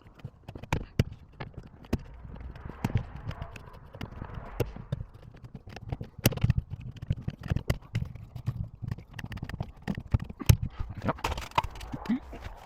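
Irregular taps, knocks and clicks as aluminium sliding-door track parts and tools are handled and fitted inside a cupboard.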